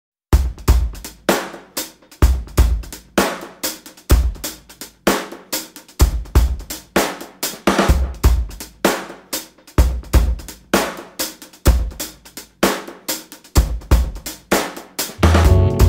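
Background music: a steady drum-kit beat of kick, snare, hi-hat and cymbal, with a bass line coming in near the end.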